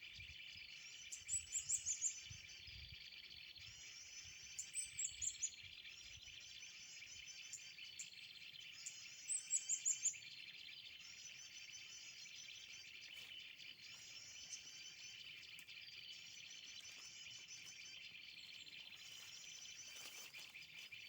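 High-pitched bird calls: three short runs of four or five rapid notes, in the first ten seconds, over a steady drone of crickets and other insects.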